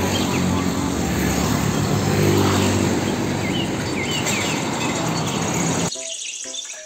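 Diesel engine of a loaded car-carrier truck running in street traffic: a steady low engine hum under road noise, with faint bird chirps. It cuts off abruptly about six seconds in.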